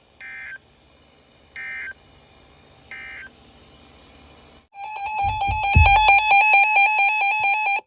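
Emergency Alert System header tones: three short buzzy data bursts about a second and a half apart, then after a short gap a loud, harsh alert tone lasting about three seconds, with a low rumble under it near its start. Together they open a new alert, here a tornado warning.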